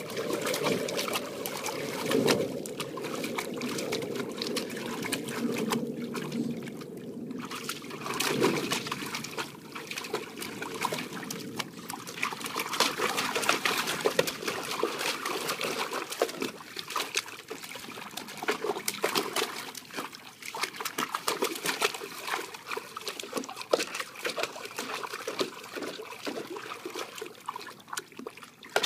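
Old English Bulldogge pawing and splashing water in a shallow plastic kiddie pool: continuous, irregular splashing and sloshing.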